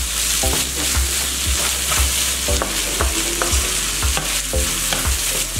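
Beef mince and onions sizzling in a non-stick frying pan while a wooden spatula stirs and scrapes through them, about two strokes a second.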